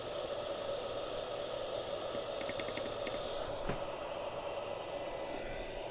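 Hot air rework handpiece of a Yihua 8786D station blowing a steady stream of air: an even hiss from its fan. A quick run of light clicks about two and a half seconds in, and a single soft knock a second later.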